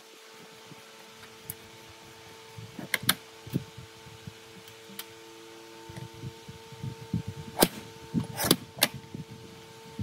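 Scattered sharp clicks and dull knocks over a steady hum, busiest in the second half.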